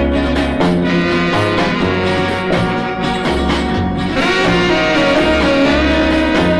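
Old popcorn-style oldies record playing: a full band over a bass line that steps from note to note on a steady beat.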